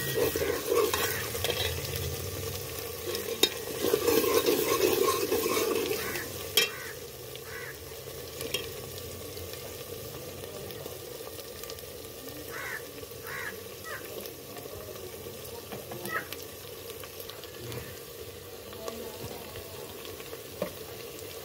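Chopped onions frying in oil in a metal pot. For the first six seconds or so a steel ladle stirs and scrapes, then the sizzle settles to a steadier, quieter hiss with a few pops.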